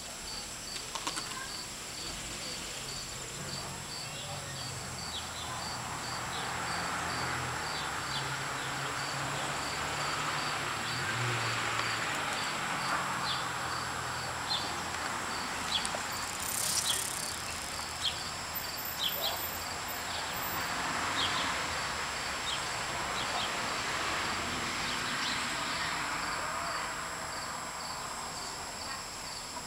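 Insects chirping in a steady, even rhythm of a few high chirps a second, with a soft outdoor hiss that swells and fades behind them.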